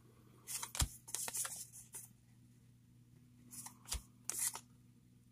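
Cardboard baseball cards being slid off a stack and flipped through by hand: two spells of papery rustling and swishing, each with a sharp tap, over a faint steady hum.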